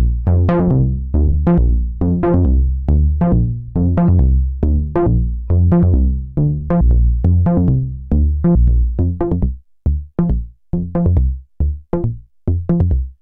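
Moog Rogue two-oscillator monosynth playing a fast sequenced bass pattern of sawtooth notes, each opening bright and closing down under the filter envelope. About nine and a half seconds in, the notes turn short and clipped, with gaps between them, as the envelope settings are turned down.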